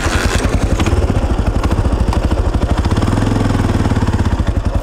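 Trail motorbike engine running with a rapid, even exhaust beat; the revs rise about three seconds in.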